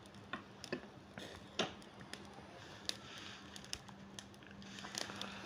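Faint scattered clicks and ticks with light crackling from a charcoal mangal loaded with skewers and wire grill baskets of lamb, as the metal skewer and baskets are handled on it. A faint steady hum runs underneath.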